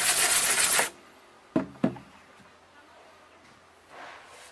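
Stiff plastic hand brush scrubbing a wet screen-printing mesh, working ghost-image remover and ink wash into it, which stops about a second in. Two short knocks follow half a second later.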